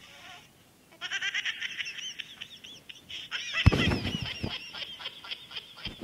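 Comic ringtone played through a phone's small speaker: a fast run of high squeaky chirps that warble up and down, starting about a second in, with a louder, lower burst about two-thirds of the way through.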